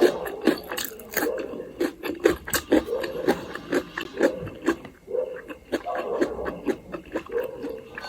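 Close-miked eating: wet chewing with many irregular mouth clicks and lip smacks.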